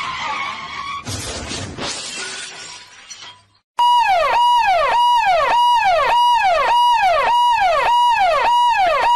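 A noisy crash-like rush in the first seconds. Then a loud siren sound effect: a held tone that slides down in pitch, repeated nearly twice a second, starting about four seconds in and cutting off suddenly.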